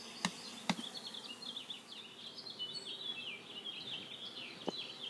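A mass of honeybees buzzing as a package colony is shaken into a hive, with a few sharp knocks. Songbirds chatter steadily over the buzz.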